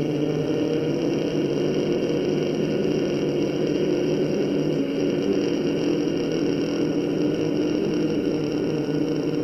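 A man's long, steady Ujjayi pranayama inhale: breath drawn in slowly through a partly closed throat, giving a continuous throat sound. This is the slow inhalation stage, before the breath is held.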